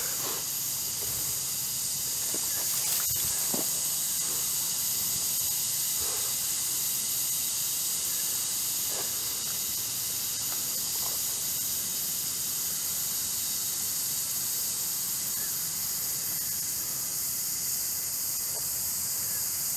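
A steady high-pitched hiss that never changes, with a few faint crackles scattered through the first half.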